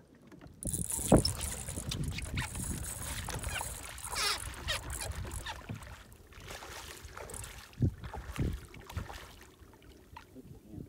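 Water sloshing and knocking against a canoe, with a few louder thumps: the loudest about a second in, two more near the eight-second mark.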